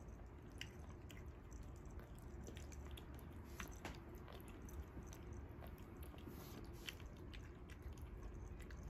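A young cat eating soft wet cat food from a bowl: faint, irregular chewing clicks.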